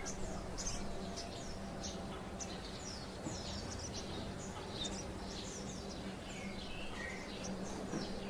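Many small birds chirping and twittering in quick, overlapping high calls, over a steady low hum.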